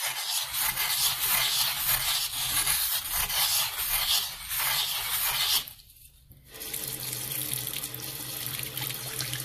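Pumice stone rubbed hard against a porcelain sink around the drain to scour off hard-water stain, stopping about five and a half seconds in. After a brief pause, a faucet runs, rinsing water over the drain.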